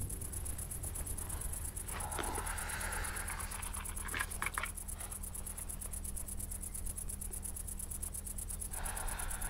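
Crickets chirping steadily over a low hum. A brief rustle with a few small clicks comes about two seconds in.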